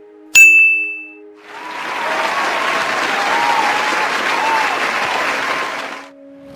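A bright ding sound effect, the loudest sound, rings out once and fades within a second; then a burst of crowd applause runs for about four and a half seconds and cuts off. Together they mark the answer being revealed.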